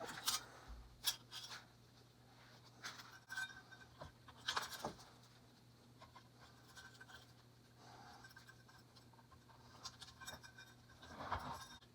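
Scattered light scrapes, rubs and clicks of hand work on small parts, over a faint steady low hum.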